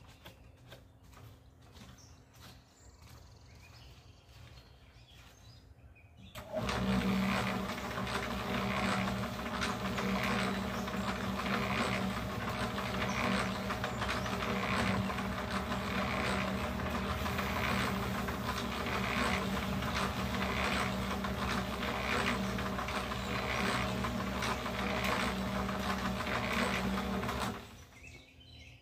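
Small electric cement mixer switched on about six seconds in, running with a steady motor hum and a regular pulse from the turning drum a little more than once a second, then switched off near the end.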